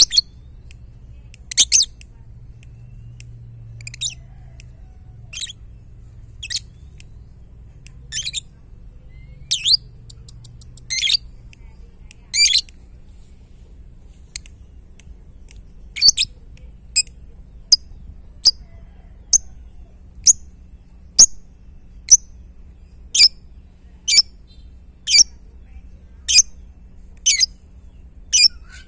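Lovebird giving the short, sharp repeated chirps that bird keepers call 'ngetik' (typing). The chirps come irregularly at first, then settle into about one a second in the second half.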